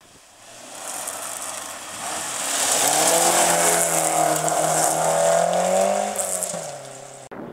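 Volvo saloon rally car driving past at speed on a gravel stage, its engine note building as it nears and pulled steadily, with a hiss of tyres on gravel over it. The engine pitch drops near the end, then the sound cuts off suddenly.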